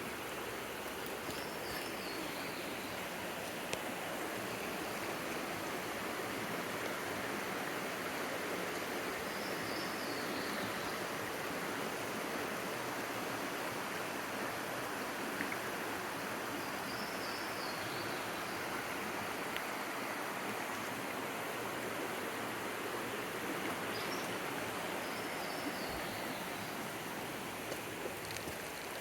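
Mountain stream rushing steadily over rocks, an even, unbroken water noise. A short, faint, high warbling phrase recurs four times above it.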